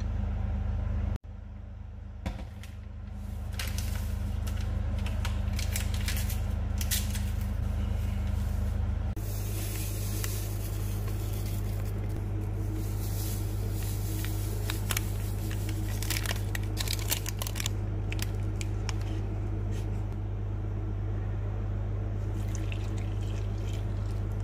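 A pale powder and then milk being poured into a plastic mixing bowl, with many small clicks and rustles over a steady low hum.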